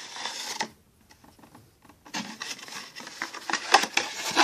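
Cardboard gift box being handled and opened and a plastic bottle slid out of it: rustling and scraping of cardboard, with a short pause after the first second, then more rustling and a few sharper knocks near the end.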